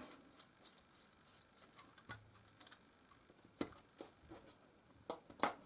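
Faint clicks and taps of small plastic camcorder parts being handled and worked loose during disassembly, a few sharper clicks in the second half, the loudest near the end.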